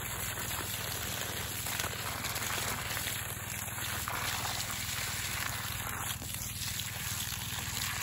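Water gushing from a lay-flat irrigation hose onto dry soil and dried leaves at the base of a grapevine, a steady splashing rush.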